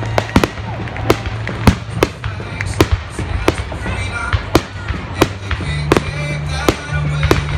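Fireworks shells bursting aloft in a rapid, irregular series of sharp bangs, roughly two a second, with music playing underneath.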